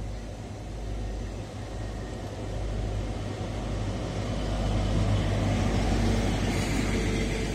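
Intercity 125's Class 43 diesel power car approaching and passing close by along the platform, then its coaches following. The engine and wheel rumble grows louder, peaking about five to six seconds in as the power car goes past, with a rising rush of wheels on rail near the end.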